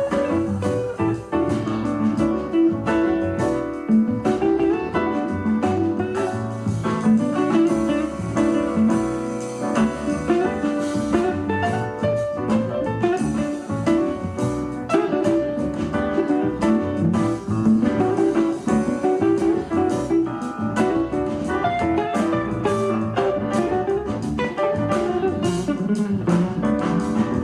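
Background music: a guitar-led instrumental with a steady beat, in a bluesy, jazzy style.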